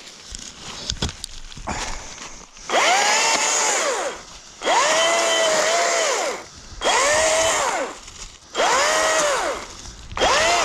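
Chainsaw revved in about five short bursts, starting a few seconds in, each rising in pitch and then falling back, as it cuts through pieces of wood.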